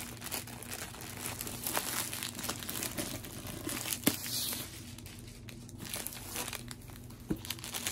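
Plastic packaging crinkling and rustling as a rolled diamond-painting canvas is slid out of its clear plastic sleeve, with scattered sharp crackles.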